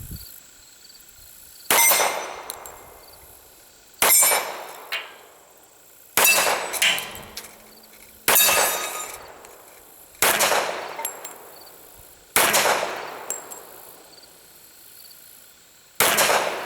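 Taurus PT1911 .45 ACP pistol firing seven single shots, about two seconds apart with a longer pause before the last. Each shot is sharp and loud, followed by a ringing tail.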